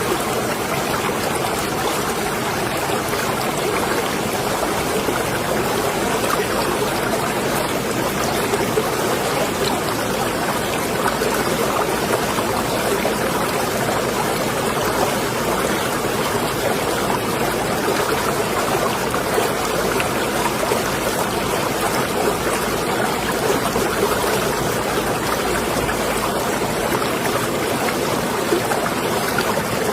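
Marina water lapping and trickling steadily.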